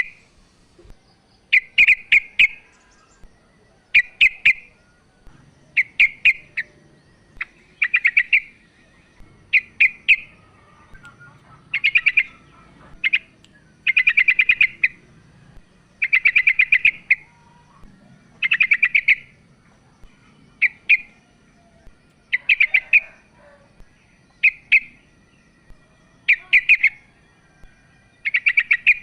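Female yellow-vented bulbul calling to a male: short bursts of rapid chattering notes, one about every two seconds.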